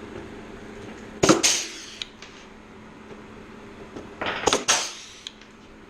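Blind rivets being pulled with a rivet puller on the aluminium flaperon skin: a sharp snap with a short hiss about a second in, then a quicker cluster of snaps around four to five seconds in.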